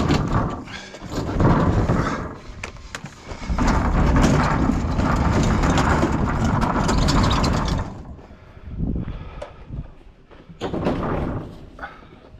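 Scrap metal being handled and loaded: rattling knocks and scraping, with a long stretch of steady scraping in the middle, then scattered knocks.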